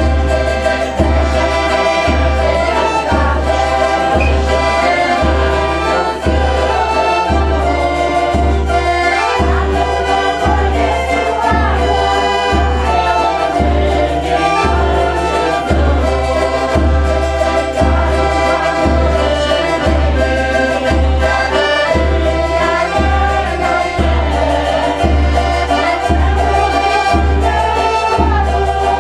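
Group of voices singing a Portuguese folk cantiga together in chorus, with instrumental accompaniment and a steady low beat a little under once a second.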